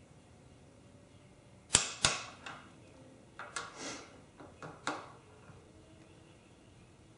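Click-type torque wrench giving its release click at the set torque of 47 foot-pounds on the large handlebar riser bolts: two sharp clicks close together about two seconds in, then several softer clicks over the next few seconds.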